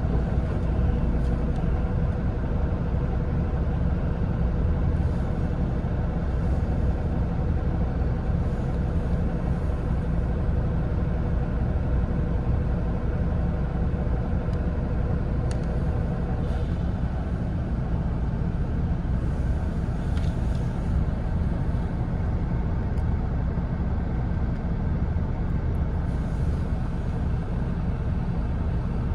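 Mitsubishi Fuso Aero Ace coach heard from inside the passenger cabin while under way: a steady drone of diesel engine and road noise, heaviest in the low end. A faint steady whine runs through the first half and fades out about halfway.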